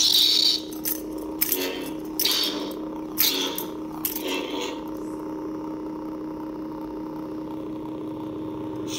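Lightsaber hilt's soundboard (Nano Biscotti v4) playing its sound font through the hilt speaker: a steady electronic hum with about five swing whooshes as the saber is swung during the first half. After that only the steady hum is heard.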